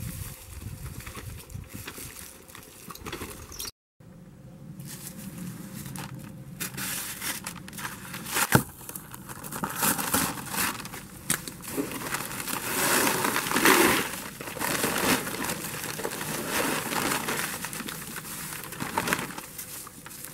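Paper sack of concrete mix being slit open and emptied into a plastic mixing tub: the paper crinkles and crumples while the dry mix pours out. There is a sharp click partway through, and the rustling is loudest a little past the middle.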